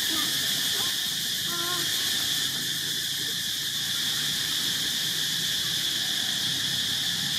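Steady, dense high-pitched insect chorus, with a few faint short chirps in the first couple of seconds.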